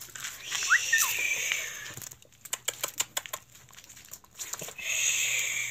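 Dogs sniffing closely at a rattlesnake: a brief high dog whine in the first second and a half, then a run of quick sniffs and small clicks. A high hissing buzz comes and goes near the start and again near the end.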